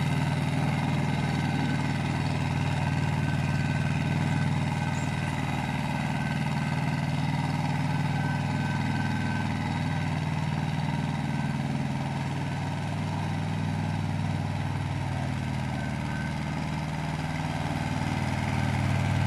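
Pasquali 425 compact 4x4 tractor's engine running steadily under load while its PTO drives a Maschio rotary tiller through the soil. It dips a little in loudness partway through and rises again near the end.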